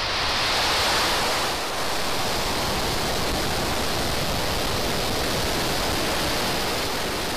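Falcon 9 rocket's nine Merlin first-stage engines at full thrust during liftoff, heard as a loud, steady rush of noise with no distinct tones.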